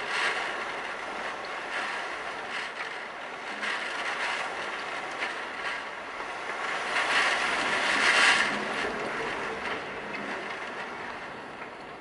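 Typhoon wind gusting with driving rain, a rushing noise that swells and eases, strongest in a gust about seven to eight seconds in.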